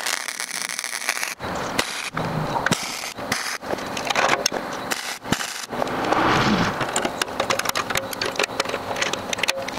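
Metal workshop parts being handled and shifted: irregular clanks, clicks and scrapes, with a longer, louder scrape about six seconds in.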